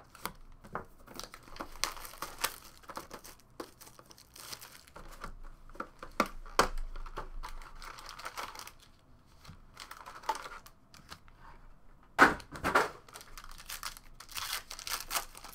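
A cardboard trading-card box being opened by hand and its foil-wrapped packs handled and torn: crinkling wrapper and short ripping sounds. The loudest rips come about three-quarters of the way through.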